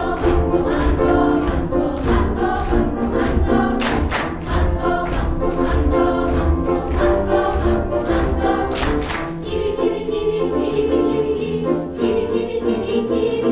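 Children's choir singing a canon, with a few sharp beats about four and nine seconds in.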